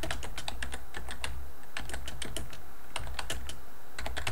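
Typing on a computer keyboard: quick runs of keystrokes with short pauses between words.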